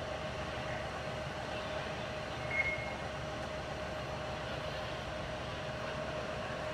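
Parked fire engines running at idle, a steady drone with a constant hum. A brief high chirp comes about two and a half seconds in.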